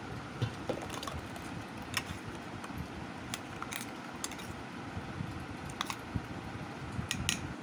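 A few sharp, scattered clinks of metal utensils against a steel mixing bowl, over a steady background hiss.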